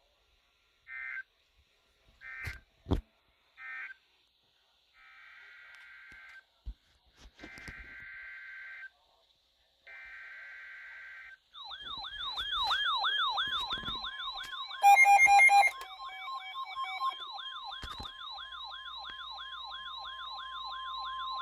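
Emergency alert broadcast signalling. Three short bursts of screechy digital data chirps are followed by three longer bursts: the SAME end-of-message codes of one alert, then the header codes of the next. About halfway through, the attention signal starts: a fast-warbling, siren-like alarm with a steady tone near 1 kHz (the NOAA Weather Radio 1050 Hz warning alarm) running under it, and a brief, loud beeping burst about 15 seconds in.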